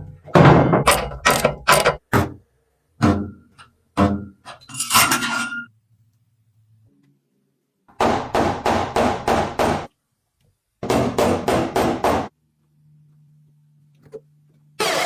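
Hammer blows on car body sheet metal: irregular strikes at first, some ringing briefly, then quick runs of about four blows a second. A faint steady hum comes near the end.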